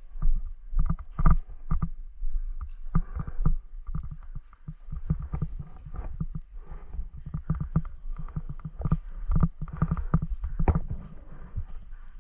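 A player's footsteps and kit rustling: a string of irregular soft thumps.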